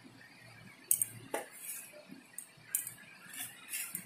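A few light clinks and taps of a steel spoon against the bowl and a container as salt is spooned into dry gram flour.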